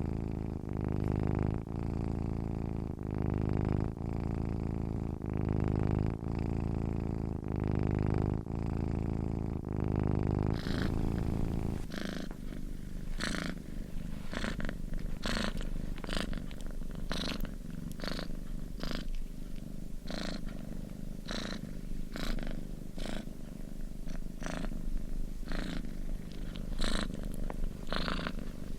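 Domestic cat purring, a low rumble that swells and fades with each breath about once a second. About eleven seconds in the deep rumble thins and each breath brings a brief airy rasp.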